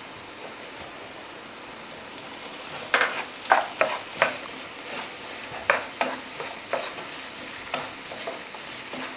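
Chopped onions and green chillies sizzling in hot peanut oil in a nonstick kadai, with a steady hiss. From about three seconds in, a wooden spatula stirs them, scraping and knocking against the pan in short, irregular strokes.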